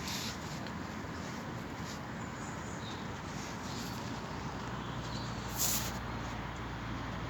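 Wind gusting with light rain spitting: a steady rushing noise whose low rumble deepens about four and a half seconds in, with one short sharp crackle a little before six seconds.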